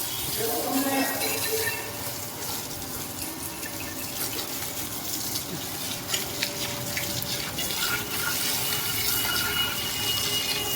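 Water running from a hose and splashing over a motorcycle as it is washed: a steady hiss broken by irregular splashes.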